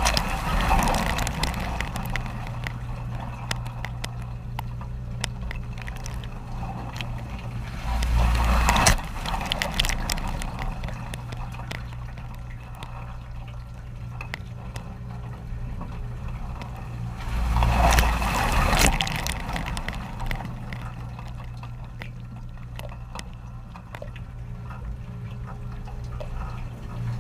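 Dishwasher running its wash cycle: water spraying and splashing over a steady pump hum, with many small clicks and drips. It swells into loud surges of spray about every nine seconds.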